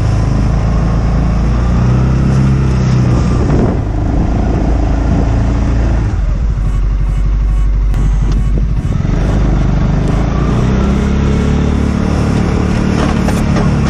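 Segway Snarler ATV engine running while pushing a snow plow, its revs rising and falling, dropping lower for a few seconds around the middle before picking up again.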